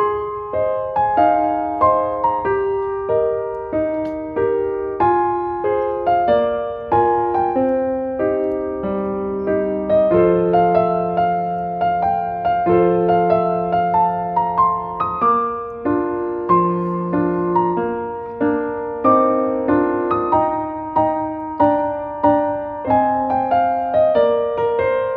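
Background music: a piano or electric piano playing a slow melody, note by note, with each note struck and fading.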